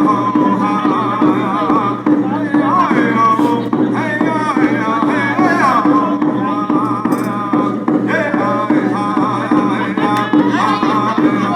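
Powwow round dance song: several singers' voices rising and falling in pitch together, carried over steady hand drums.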